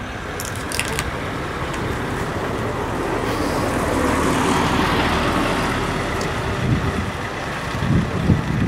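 A road vehicle drives past close by. Its noise swells to a peak about four to five seconds in and then fades away.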